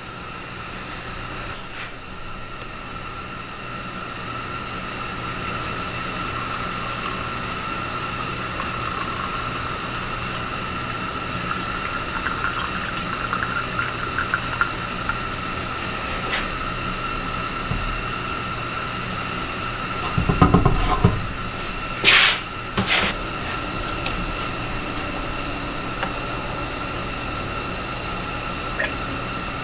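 Steady machine hiss and hum with a faint high whine, with a low rumbling burst about two-thirds of the way through followed by two short, loud hisses.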